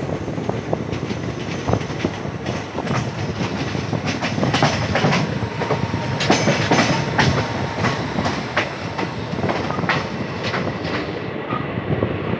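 Indian Railways train running along the track, its wheels clattering over rail joints in a steady run of irregular clicks that grows busier in the middle. A faint thin whine comes in for a few seconds midway.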